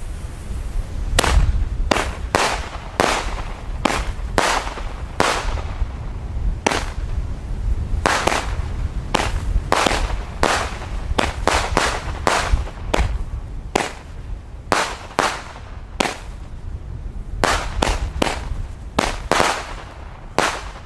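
Nico Magic Djinn 16-shot consumer firework battery firing: a steady run of sharp bangs from its shots launching and bursting, about two a second, starting about a second in. Wind rumbles on the microphone underneath.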